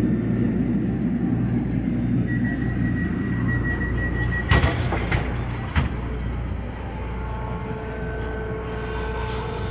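SEPTA Kawasaki light-rail trolley heard from inside the car as it runs through an underground station: a steady rumble of wheels and motors, with a high steady whine for a couple of seconds, then two sharp knocks a little over a second apart that are the loudest sounds.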